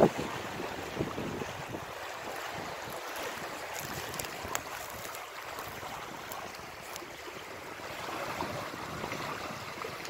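Small waves of the Baltic Sea lapping and washing over a stony, pebbly shoreline, a steady wash of water, with wind rumbling on the microphone near the start and again near the end.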